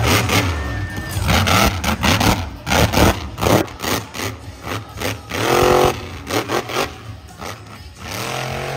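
Monster truck engine revving hard in bursts, rising in pitch about halfway through and again near the end, mixed with repeated thuds and crashes as the truck lands jumps and bounces over dirt mounds.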